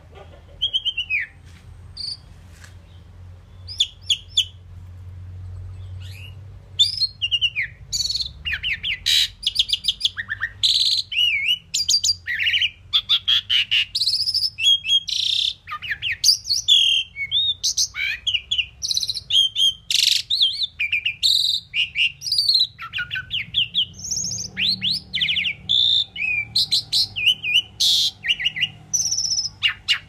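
Asian pied myna singing: a few scattered whistled notes at first, then a long, fast, varied run of whistles, pitch glides and clicking chatter.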